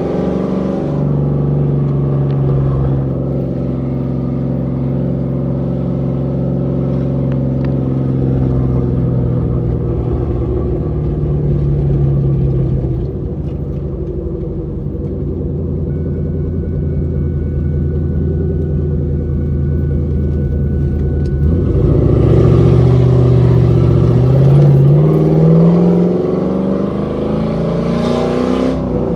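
Car engine and exhaust under way while driving: a steady cruising note for most of the time, then the engine accelerates with a rising pitch in the last several seconds before easing off near the end.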